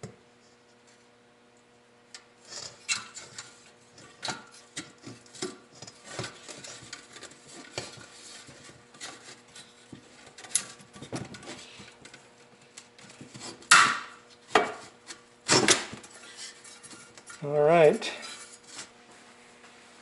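Steel furnace burner tubes of a Lennox WhisperHeat G20 being handled and slotted into their bracket on a wooden workbench: scattered metal clinks, taps and scrapes, with two louder clanks about two-thirds of the way through.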